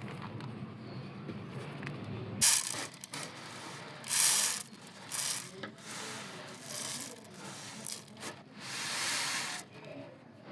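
A low steady rumble that cuts off about two and a half seconds in, followed by several short scraping noises, the longest lasting about a second.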